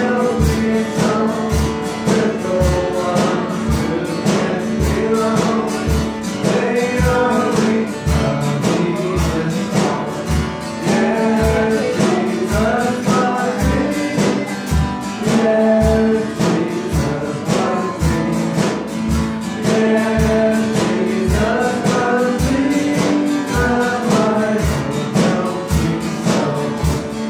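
A child singing a song into a handheld microphone, amplified, over guitar accompaniment with a steady beat of about two thumps a second.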